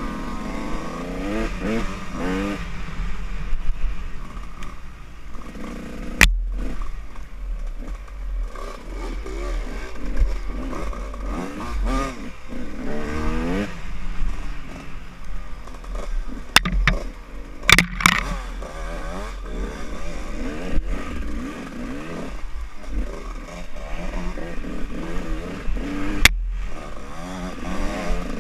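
Dirt bike engine heard from on board, revving up and down over and over as the throttle opens and closes on a rough trail, over a low rumble. Sharp knocks cut through about six seconds in, twice around seventeen seconds, and once near the end.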